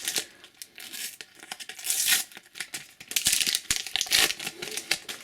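A Panini sticker packet being torn open and its wrapper crinkled in the hands, with the stickers rustled and flicked. The wrapper noise is loudest about two seconds in and again from about three to four seconds.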